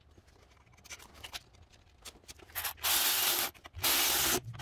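A power ratchet running bolts down, most likely the four throttle body bolts just threaded in by hand: faint clicks of handling, then two short bursts of the tool running, near the middle and near the end.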